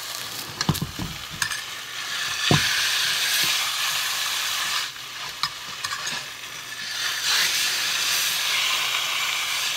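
A chicken breast sizzling in vegetable oil in a nonstick frying pan, a steady frying hiss that swells louder about two and a half seconds in. A few knocks from the pan come in the first three seconds.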